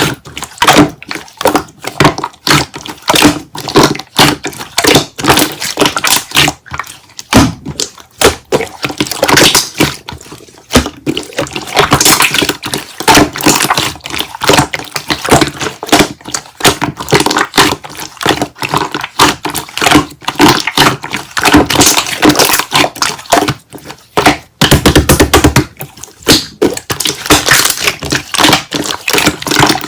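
Slime being squeezed and kneaded by hand, giving rapid clicks and pops, with a faster burst of clicks near the end.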